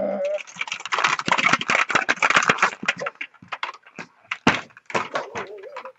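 The small ball inside a clear plastic puzzle maze sphere rattling and clicking through its tracks as the sphere is turned and shaken. The clicking is dense for about three seconds, then thins to scattered clicks with one sharp knock partway through.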